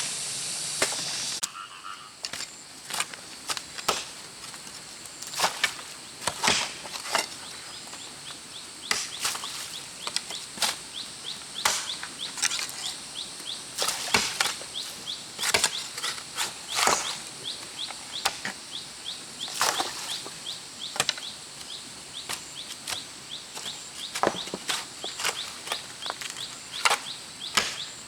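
Hand hoes striking and chopping into the soil, sharp irregular thuds about once a second. A faint, fast chirping repeats high in the background.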